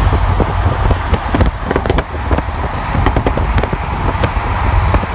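Ford Focus ST Mk2's turbocharged five-cylinder engine running at speed, with irregular sharp pops and crackles from its exhaust over a heavy steady rumble of road and wind noise.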